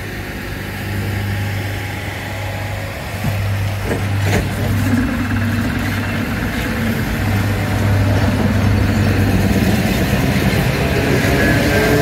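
Train locomotive running at a steady low hum, with a single knock about four seconds in and a rising whine coming in near the end.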